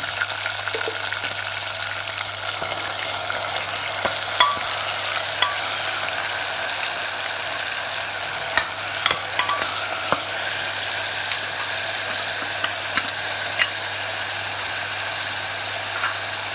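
Goat meat and grated onion sizzling steadily in hot oil in a pressure cooker, with scattered sharp clicks of a metal ladle against the pot as it is stirred.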